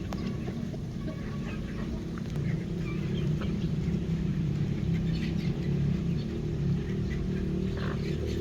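A flock of backyard chickens clucking as they feed, with scattered short sharp sounds over a steady low rumble.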